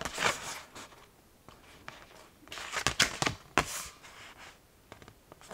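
Paper leaflet being handled and turned over: a short rustle at the start and another cluster of rustles and crinkles around the middle, with quiet gaps between.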